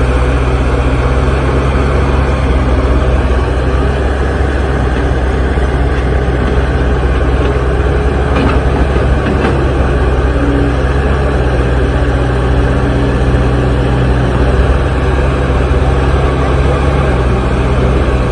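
Heavy diesel machinery engine running steadily and loudly close by, with a constant low hum.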